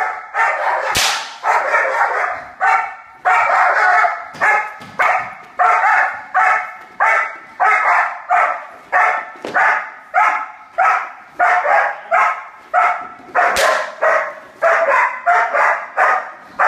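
Dog barking repeatedly at a helper during protection bitework, about two barks a second. Two sharp cracks cut through the barking, one about a second in and one near the end.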